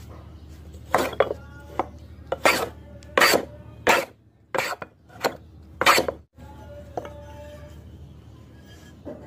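Homemade wooden hand plane with a steel blade shaving a pine board: about ten short, scraping strokes in the first six seconds. A light metallic clink follows about seven seconds in.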